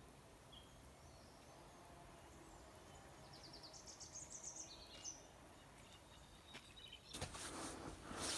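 Quiet mountain-forest ambience with a faint bird song: a short run of high trilled notes about halfway through and a few single chirps. Near the end, footsteps start on the trail.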